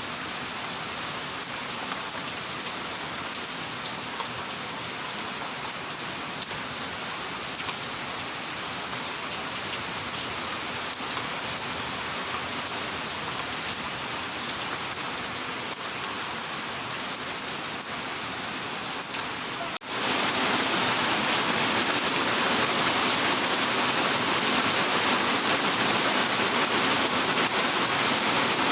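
Steady rain falling and pattering on surfaces. About 20 s in, it cuts abruptly to a louder, fuller rush of rain.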